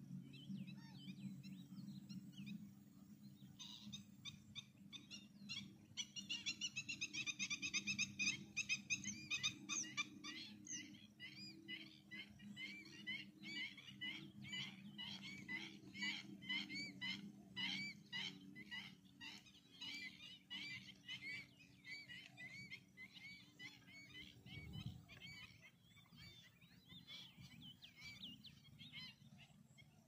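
Wild animal chorus: rapid, repeated high chirping calls, densest a few seconds in, then settling into an even run of about two to three calls a second, over a steady low hum.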